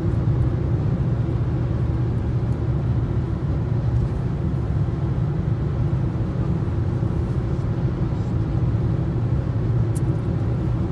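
Steady low rumble of a car driving at speed, heard from inside the cabin.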